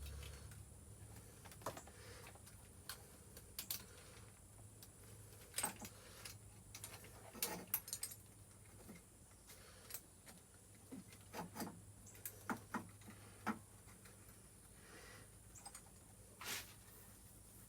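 Irregular light clicks and metallic taps of hands and small tools working on a dirt bike's carburetor throttle-cable bracket, over a faint steady low hum.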